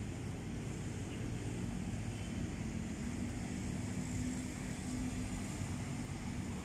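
Steady low rumble of street traffic, with a motor vehicle engine humming through it.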